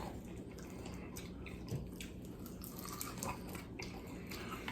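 Close-miked chewing and biting of fried chicken feet, with small irregular crunches and wet mouth sounds.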